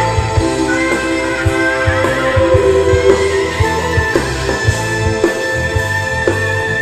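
Live rock band playing an instrumental passage without vocals: electric guitars over bass and a steady drum beat.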